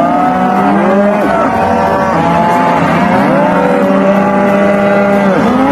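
Cattle mooing: several long, overlapping moos that bend in pitch, ending in an abrupt cut.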